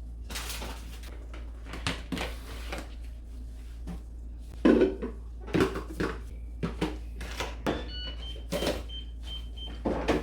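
Dishes and food containers being handled, with irregular knocks and clatters and doors and drawers opening and closing; the loudest knock comes about halfway through. A few faint short high beeps sound near the end.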